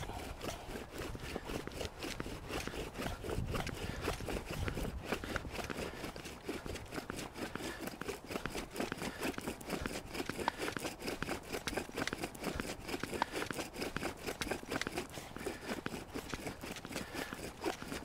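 Bow drill being worked: a wooden spindle spun back and forth by a cord bow, grinding in its hollow in a tinder-fungus hearth, giving a steady, dense dry scraping. It is the friction stage of making fire, heating the hearth toward an ember.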